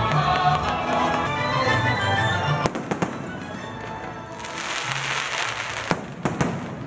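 Fireworks display over background music. The music plays at first; then, a little over a third of the way in, sharp bangs of exploding fireworks begin, followed by a spell of hissing and crackling, with several more bangs near the end.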